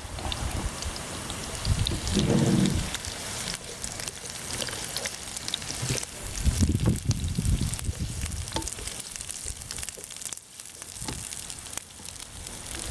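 Sliced onion, ginger, celery and peppers sizzling as they fry in hot oil in a pan, with scattered clicks of the stirring utensil.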